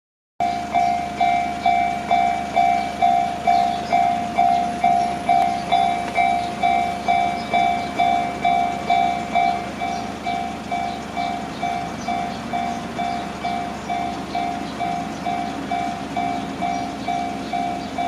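Japanese railway level crossing warning bell ringing its electronic 'kan-kan' alarm, about two strikes a second. It starts about half a second in and gets a little quieter about halfway through, once the barriers are down.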